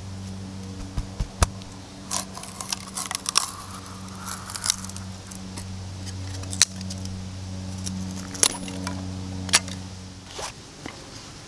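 A large bushcraft knife cutting and shaving a thin split stick: a string of sharp clicks and short scraping strokes as the blade bites and slides along the wood. A steady low hum sits underneath and stops near the end.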